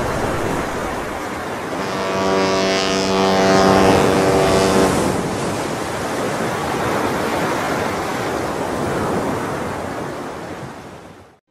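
Steady rush of ocean waves. About two seconds in, a single long ship's horn blast holds one pitch for some three seconds. The sound fades out at the very end.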